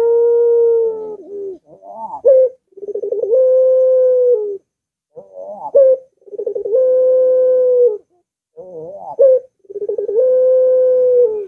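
Barbary dove (puter) cooing, a repeated two-part coo. Each call is a short wavering note that rises, then a long held low note, coming about every three and a half seconds.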